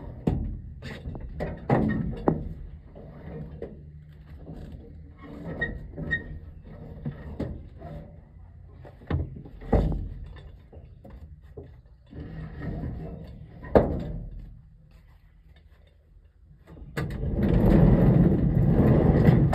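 Scattered knocks and thuds, a few of them sharp, with a louder rushing noise over the last two or three seconds.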